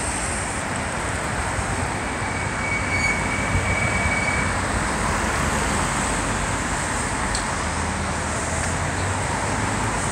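Steady city street traffic noise: cars driving through an intersection, with a low engine hum under it. A faint high whine is heard for about two seconds, starting about two seconds in.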